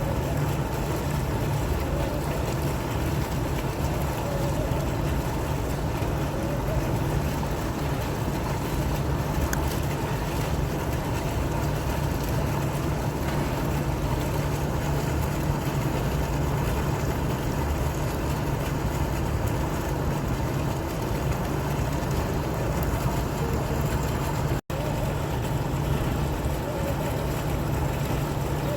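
Fountain water flowing and splashing in a steady, unbroken rush, cut off for an instant near the end.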